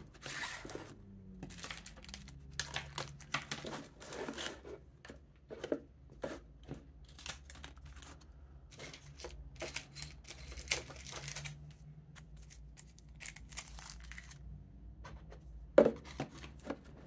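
Phone packaging being handled: plastic and paper tearing and crinkling in irregular bursts with scattered clicks, and a sharper knock near the end.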